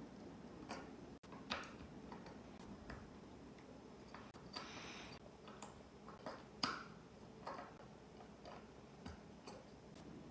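Plastic Lego bricks clicking as they are handled: faint, irregular sharp clicks, the loudest about two-thirds of the way through, with a brief rustle a little before halfway.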